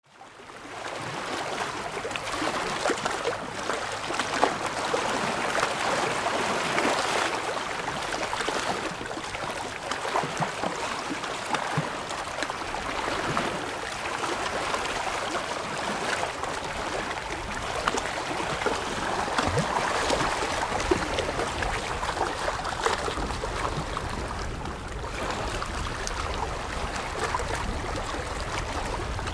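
Small waves lapping and splashing against shoreline rocks: a steady wash of water full of small irregular splashes. It fades in at the start.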